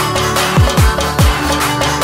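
Background music with a heavy electronic beat: deep kick drums that drop sharply in pitch, several to the second, under layered synth and percussion.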